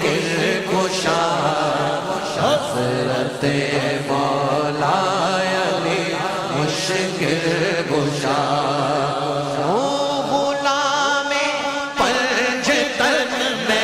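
Naat recitation: a voice chanting a long, wavering, ornamented line over steady held tones. It grows a little louder about twelve seconds in.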